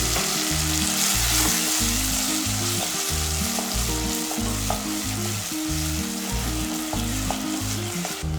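Ingredients frying in hot oil in a pan, a loud steady sizzle that starts suddenly, as if something has just been added, with a few faint ticks of stirring. Background music plays underneath.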